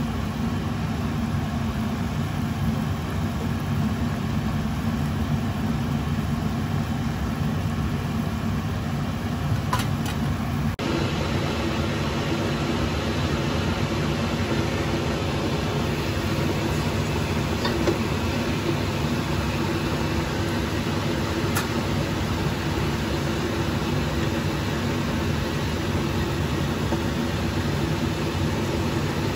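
Whole chicken frying in a pan of bubbling oil, under a steady low drone. The sound changes abruptly about eleven seconds in, and a few faint clicks come through.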